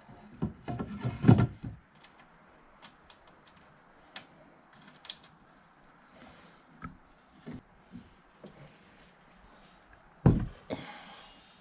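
A cluster of knocks and clatter, as of objects being handled and set down, then scattered light taps, and a sharp heavy knock near the end followed by a brief hiss.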